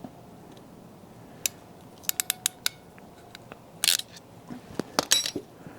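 Hand wire tools snipping and clicking on a thin electrical wire while a new bullet connector is fitted to the oil pressure switch lead. There is one click about a second and a half in, a quick run of five clicks a little after two seconds, a short rasp near four seconds, and a close cluster of louder clicks near the end.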